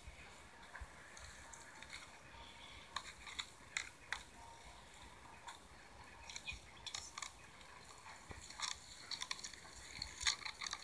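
Glow-in-the-dark slime squeezed and kneaded by hand, giving faint irregular wet clicks and pops in clusters, busiest near the end.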